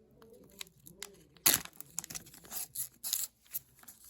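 Foil wrapper of a hockey card pack crinkling and tearing, in short bursts that start sharply about a second and a half in.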